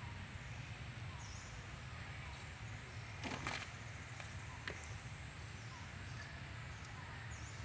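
Quiet outdoor ambience: a steady low background hum, with short high chirps repeating every couple of seconds. A brief scratchy noise comes a little over three seconds in, and a faint click a second later.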